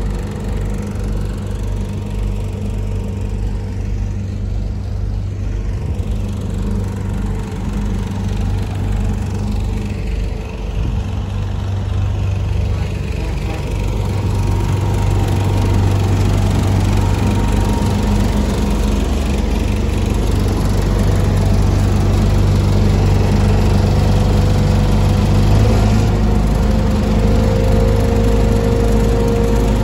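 Diesel engine of a Hamm 3412 single-drum vibratory roller idling steadily, getting louder about halfway through.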